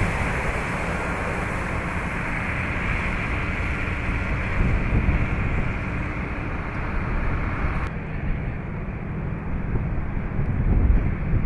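Wind buffeting the microphone over a steady rushing noise of storm and water on a flooded street. About eight seconds in, the higher hiss drops away abruptly and the low buffeting grows stronger near the end.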